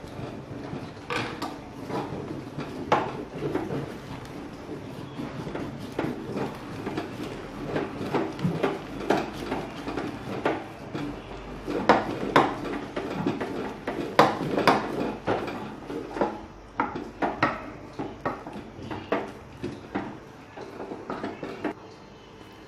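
A utensil stirring and mashing thick, cooked jowar flour dough in a pot, with repeated irregular scraping and knocks against the pot's sides.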